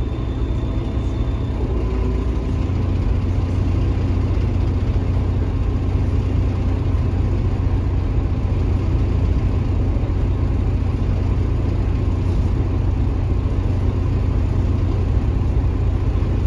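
Cabin of a Mercedes-Benz OH1830LE bus, its Mercedes OM926 six-cylinder diesel running with a steady low rumble. The rumble grows a little louder about two seconds in, then holds.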